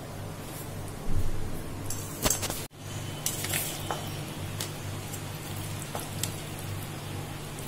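A metal spoon and ladle scraping and clinking against stainless steel bowls as food is served, a few short clinks and knocks over a low steady hum.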